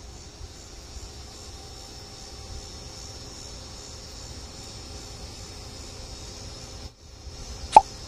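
Outdoor ambience: a steady high insect drone over a low rumble, with the audio dropping out briefly about seven seconds in. A single short, sharp pop comes just before the end.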